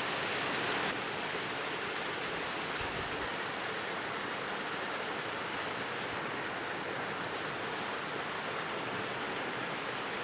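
Waterfall and its stream rushing steadily, a constant even roar of falling and running water that eases slightly about a second in.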